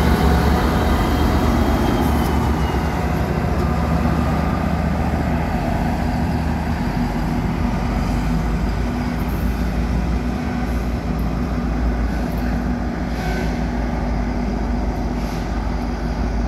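EMD GP49 diesel locomotive running under load as it hauls a train away: a steady low drone and hum that slowly fades as the train draws off.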